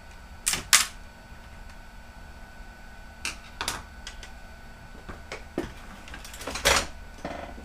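Small laptop parts being handled by hand during a teardown: two sharp clicks in the first second, scattered taps and clicks after, and a longer rustling clatter about six and a half seconds in. A faint steady hum runs underneath.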